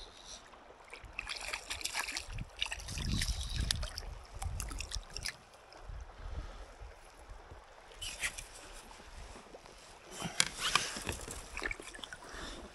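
Water splashing and sloshing beside a canoe as a small hooked grayling is landed by hand. It comes in irregular bursts with a few sharp clicks and knocks.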